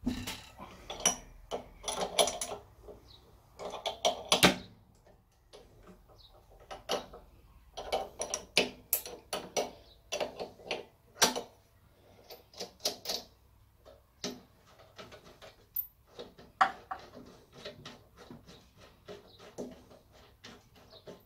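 Metal spanner working the nut of a wheel-cylinder circlip fitting tool on a Classic Mini rear brake backplate: irregular clusters of sharp metal clicks and clanks as the nut is turned and the tool shifts against the backplate.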